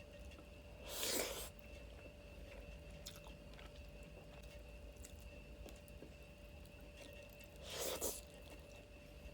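A person eating a meal of chicken, fried egg, daal and rice close to the microphone. Faint chewing and mouth clicks are broken by two louder half-second bursts of eating noise, one about a second in and one near the end.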